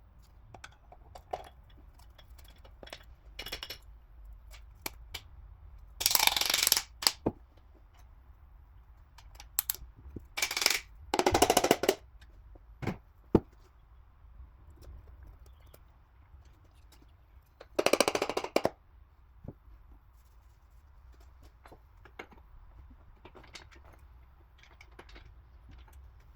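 Hand tools and metal engine parts being handled: scattered clicks and clinks, with three louder clatters of about a second each.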